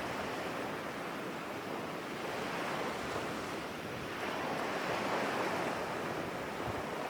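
Ocean waves washing onto a shore as a steady background sound effect, swelling and easing slowly.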